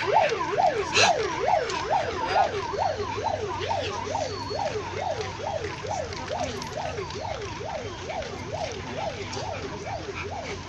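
An electronic siren sounding a fast yelp, its pitch sweeping up and down about two and a half times a second. Two sharp clicks in the first second.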